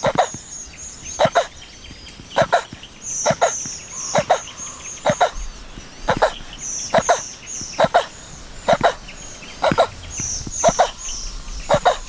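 Male radiated tortoise grunting in short sharp calls while mating, about once a second and often in quick pairs. High bird chirps come between the calls.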